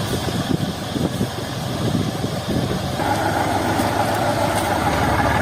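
A machine's engine running steadily with irregular knocking. About three seconds in, a louder rushing noise joins it and keeps going.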